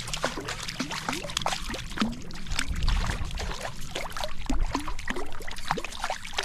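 Trout stream water gurgling and splashing: a dense run of small bubbling drips and splashes, with a few low rumbles along the way.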